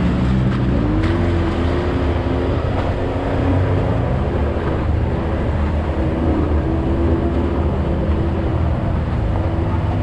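Side-by-side UTV engine running steadily while driving, its pitch rising and falling a little as the throttle changes.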